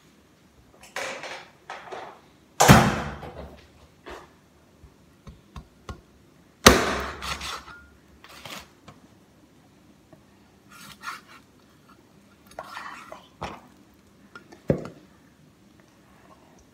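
Kitchen clatter of utensils being handled on a counter: two loud clanks with a short ringing tail, about four seconds apart, between lighter knocks and scrapes.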